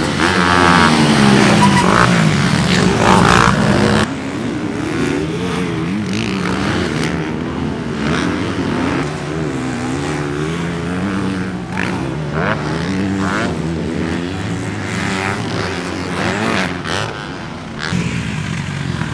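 Motocross dirt bike engines revving up and down as they ride the track, their pitch rising and falling through the gears. It is louder for the first four seconds, then drops suddenly to a steadier, lower level.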